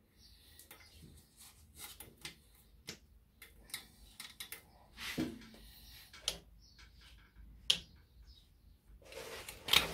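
Small metallic clicks and scrapes as a spring-puller hook stretches an exhaust tension spring onto the hooks of a stainless 4-into-1 exhaust joint. There is one sharper click about three-quarters of the way through and a louder rustle near the end.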